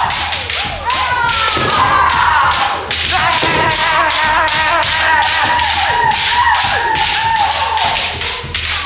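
Kendo bout: bamboo shinai clacking and tapping against each other in quick repeated knocks, over long, wavering, drawn-out kiai shouts from the fencers.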